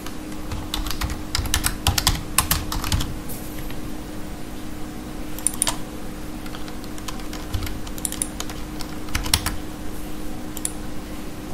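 Typing on a computer keyboard, with keystrokes coming in short bursts separated by pauses, over a steady low hum.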